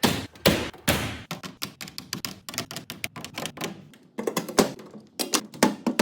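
Hand tools being handled and hung on a tool wall: a quick, irregular run of clacks, taps and knocks, with a few heavier thunks.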